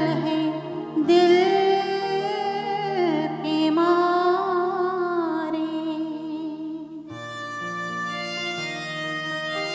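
A woman singing live into a microphone with a small band accompanying her, her voice gliding through long wavering notes. About seven seconds in her voice stops and the band plays on alone with held notes.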